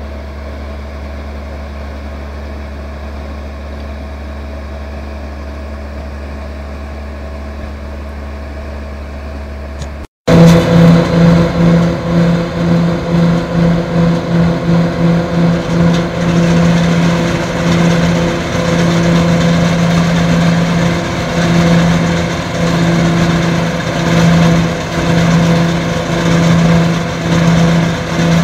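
Braud straddle olive harvester running: for about the first ten seconds only a steady low hum, then after a brief dropout the machine is loud, its engine tone pulsing in loudness roughly twice a second as it works along the row.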